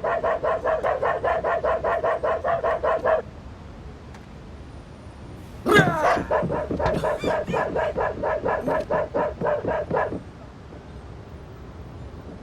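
Cartoon dog barking in fast, evenly spaced runs of about six barks a second: one run of about three seconds at the start, then a second of about four seconds beginning about six seconds in, opening with a louder, falling cry.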